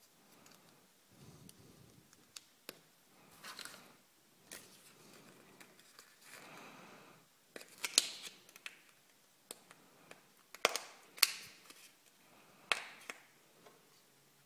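Red hard-plastic Kinder Joy capsule halves and a green plastic toy piece handled and snapped together: soft rubbing and rustling, with several sharp clicks, most of them in the second half.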